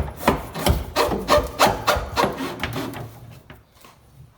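Irregular knocking and rubbing of tools and plumbing parts being handled under a sink, about three knocks a second, dying down after about three seconds.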